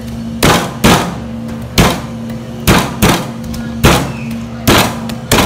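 A large kitchen knife coming down on garlic cloves on a plastic cutting board, crushing them: about eight heavy knocks at uneven intervals. A steady low hum runs underneath.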